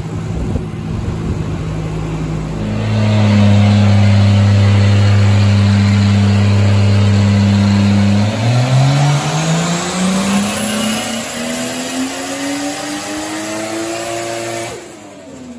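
Turbocharged Toyota 2JZ-GTE straight-six in a Nissan S13 doing a full-throttle dyno pull. About three seconds in, the engine note comes up loud and holds a steady pitch for about five seconds, then climbs steadily in pitch for about six seconds before cutting off sharply near the end.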